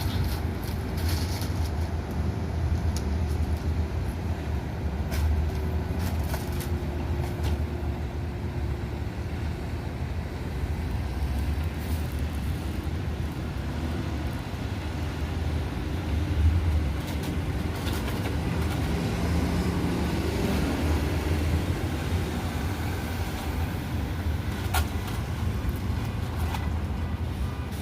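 Steady low rumble of road traffic, with a few faint clicks scattered through it.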